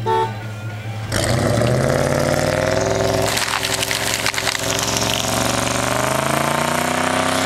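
The 1995 Chevrolet Z71 pickup's engine runs low, then about a second in revs hard and holds, its pitch climbing slowly as it strains against a tree chained to the back. The tyres spin and throw snow and mud, adding a heavy hiss.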